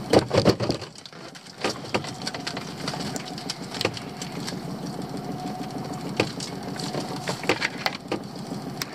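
A lobster pot being landed on a small boat, knocking heavily against the gunwale and deck in the first second, then scattered clicks and rattles as the pot is opened and a crab is worked out of it.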